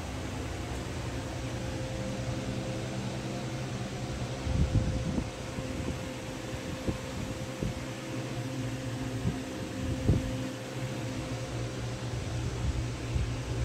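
Electric fan running with a steady hum, broken by a few short handling bumps, the loudest about five seconds in and again about ten seconds in.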